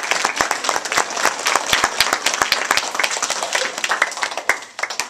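Audience of children applauding, a dense round of clapping that thins out after about four seconds into a few last separate claps.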